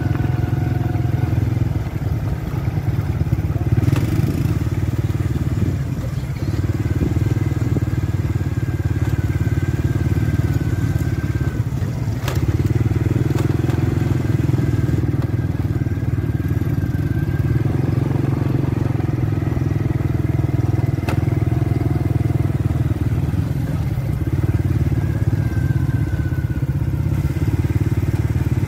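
Small step-through motorbike engines running steadily, heard from a moving bike on a dirt track, with the engine sound easing briefly twice. A couple of sharp knocks come through, one about four seconds in and one near the middle.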